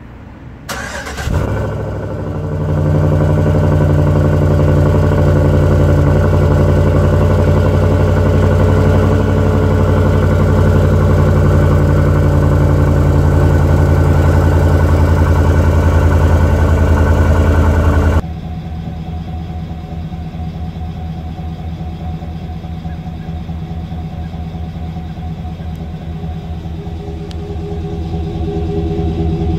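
Cold start of a 2017 Chevy Silverado 2500HD's 6.0L Vortec V8, heard at the tailpipe. It cranks and catches about a second in, then settles into a loud, steady fast idle. About 18 s in the sound drops abruptly to a quieter steady idle, which swells slightly near the end.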